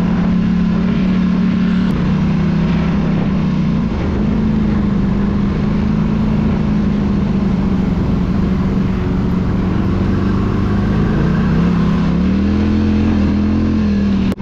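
Polaris Scrambler 1000 XP quad's twin-cylinder engine running at a steady cruise, with heavy wind noise on the microphone. The engine note dips and then climbs again near the end.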